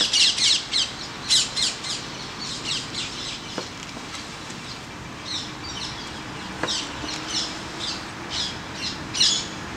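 Birds chirping over and over in short, high, quickly falling notes. A knife slicing a gimbap roll taps the wooden cutting board faintly twice, a third of the way in and about two-thirds in.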